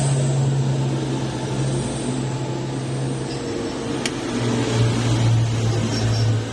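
A motor engine running with a steady low drone that drops slightly in pitch and grows a little louder just past halfway, with one sharp click about four seconds in.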